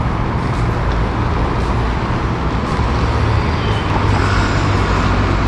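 Roadside traffic: a large vehicle's engine running close by, a steady low hum over road noise.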